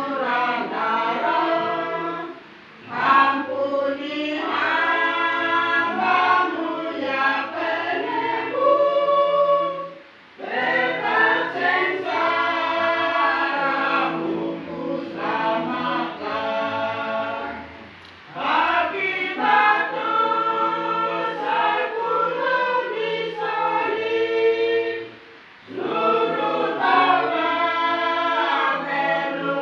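Choir singing a song in sustained phrases, each broken by a brief pause about every eight seconds.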